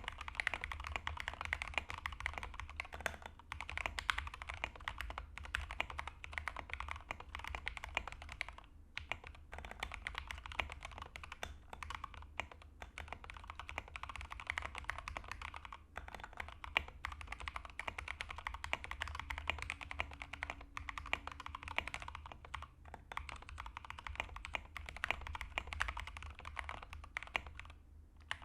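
Fast continuous typing on a custom mechanical keyboard with lubed and filmed Gateron Milky Black linear switches, an aluminium plate and SA-profile PBT keycaps in an unfoamed plastic case. The keystrokes come in quick runs broken by brief pauses, over a steady low hum.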